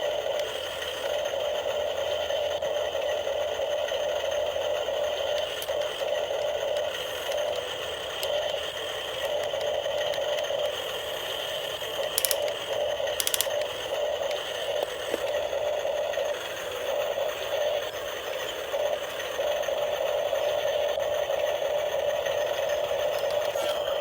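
Small electric motors and gearboxes of a radio-controlled model excavator and truck whirring steadily, the whine wavering in strength, with two sharp clicks about halfway through.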